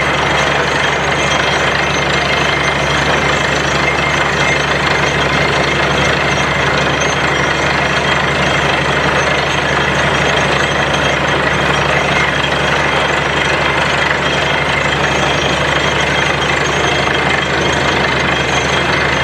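A 10 hp borewell drilling machine running loudly and steadily, a continuous low engine drone with heavy mechanical noise that does not change throughout.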